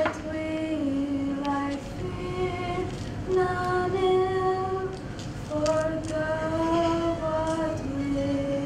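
Girls singing a slow prayer song into a microphone, holding each note for a second or so as the melody moves step by step.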